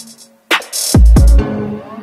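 Electronic background music with a beat: sharp drum hits and deep bass hits that slide down in pitch, with a brief drop-out just before the half-second mark.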